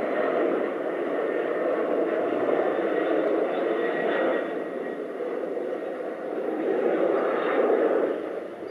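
Steady distant jet noise from the four engines of a Boeing 747 Shuttle Carrier Aircraft passing overhead, easing slightly near the end.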